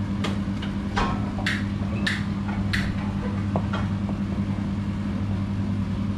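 Kitchen knife chopping red onion on a plastic cutting board: a handful of separate sharp knocks over the first three or four seconds, over a steady low hum.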